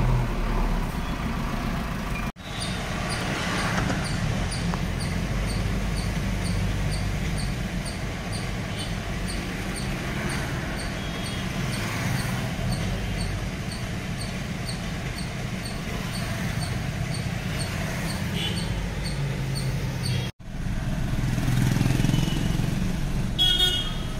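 Mahindra Scorpio N's 2.2-litre four-cylinder diesel engine idling, heard from inside the cabin as a steady low rumble. A light ticking repeats about twice a second over it.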